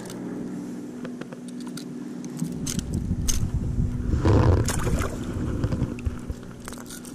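Handling noise on a fishing kayak: scattered light clicks and knocks as a small fish is held in lip-grip pliers and unhooked, with a louder rumbling, splashy stretch about four seconds in.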